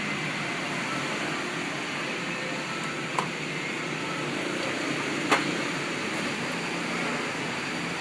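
Steady background hiss, with two sharp clicks about two seconds apart, the second louder.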